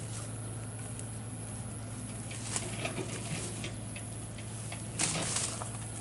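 Engine of a field-channel digging machine running with a steady low hum, while mud and water spatter and patter around it, with a louder splash about five seconds in.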